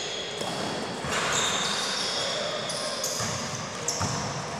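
Sneakers squeaking on an indoor sports court floor, several high squeaks each held up to about a second, with a ball thudding on the floor once or twice near the end.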